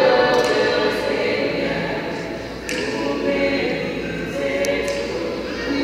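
A women's gospel vocal group singing together in harmony, holding long notes.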